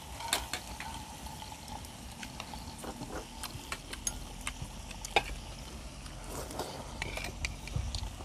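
Meat sizzling softly on a tabletop grill plate, with scattered light clicks of chopsticks against the grill and dishes.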